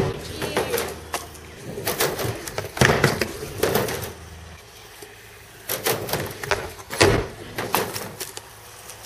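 Skateboard riding a wooden quarter pipe and the flat ground: wheels rolling, with a run of sharp knocks and clatters about a second apart as the board hits the ramp and the ground.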